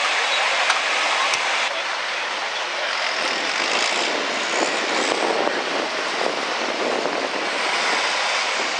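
John Deere farm tractor's diesel engine running hard at high revs on the pulling track, a loud, steady mechanical din.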